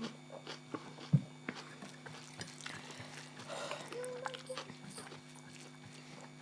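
Scattered small clicks, clinks and smacks of people eating by hand from plates, with a sharper knock about a second in and a brief squeak about four seconds in, over a steady low hum.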